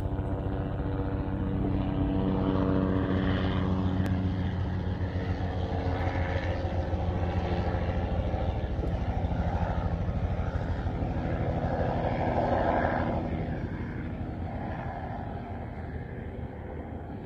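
A steady engine drone with an even pitched hum, which fades after about twelve seconds.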